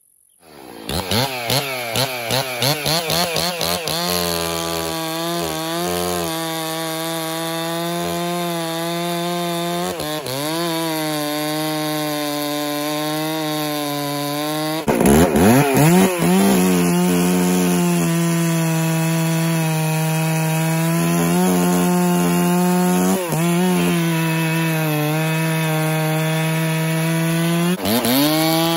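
Husqvarna 266 two-stroke chainsaw revved a few times, then running steadily under load as it cuts through a pine log. Brief dips in pitch come and go, with a burst of revving about halfway through and another near the end.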